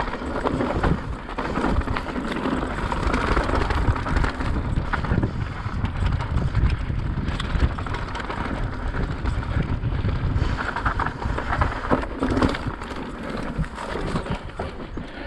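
Yeti SB160 full-suspension mountain bike ridden along a dirt singletrack, heard from a camera mounted on the rider: knobby tyres rolling over the dirt, the bike rattling and knocking over bumps, and wind buffeting the microphone.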